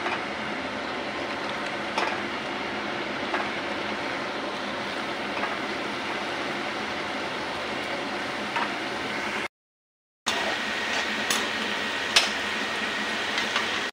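Mathri dough pieces deep-frying in hot oil in a kadhai: a steady sizzle and bubbling, with a few clinks of a slotted spoon stirring them. The sound drops out for a moment about two-thirds of the way through.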